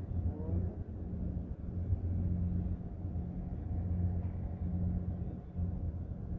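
Low, steady engine rumble with a hum that swells and fades in strength.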